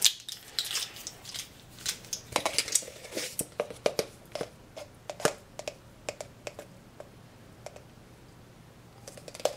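Irregular light clicks and knocks of plastic measuring spoons rattling on their ring and knocking against an open baking powder canister as a tablespoon is dipped into the powder. The clicks thin out towards the end.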